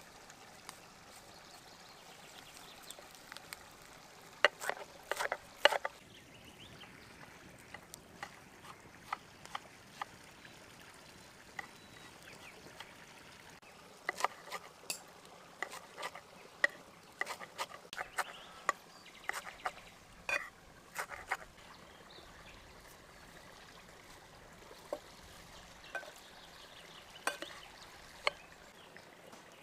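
Kitchen knife chopping fresh mint and parsley in a glazed clay bowl: sharp irregular taps of the blade striking the bowl, coming in short flurries with pauses between.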